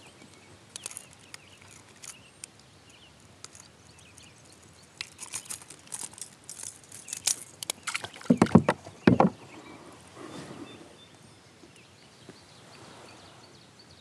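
Handling noises at a kayak as a freshly netted smallmouth bass is unhooked from a topwater lure in the landing net: scattered light clicks and rattles, then a few heavy knocks and a splash about eight seconds in.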